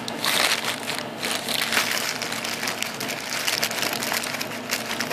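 Aluminium foil wrapping crinkling and crackling as hands handle and open it, with a plastic carrier bag rustling.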